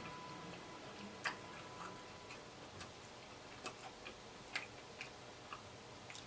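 Faint eating sounds close to the microphone: small sharp mouth clicks and smacks, unevenly spaced about every half second to a second, from chewing chicken wings.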